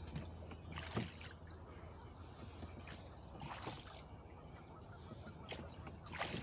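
Oars working a small rowing boat: a few strokes, each with a short splash, and water trickling between them.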